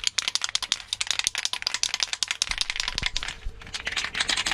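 An aerosol spray can being shaken hard, its mixing ball rattling quickly and steadily, just before spraying brake caliper guide pins.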